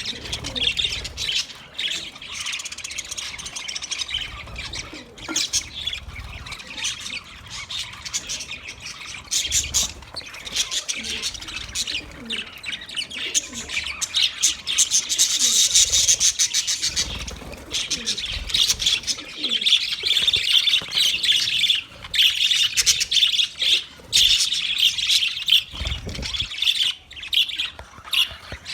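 Budgerigars chirping and warbling in a busy, unbroken chatter of many quick high calls.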